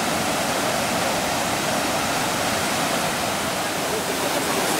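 Wide waterfall rushing steadily over rock ledges into a pool: a constant, unbroken roar of falling water.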